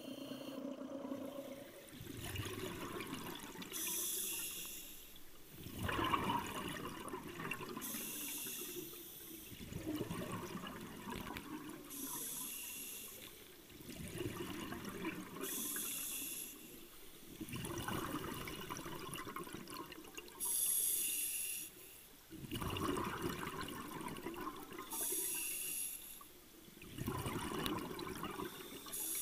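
Scuba diver breathing through a regulator underwater: a hissing inhalation followed by a bubbling exhalation, one breath about every four seconds.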